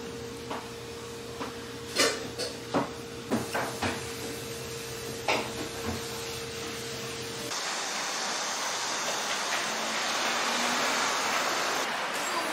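Stainless steel chopsticks clicking and tapping against ceramic side-dish plates, a dozen or so sharp taps over a steady appliance hum. About seven seconds in the sound changes to a steady hiss of background noise.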